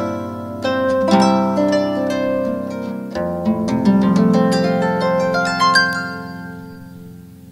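Instrumental background music: runs of plucked, harp-like notes over held low notes, with a new phrase about three seconds in, fading away toward the end.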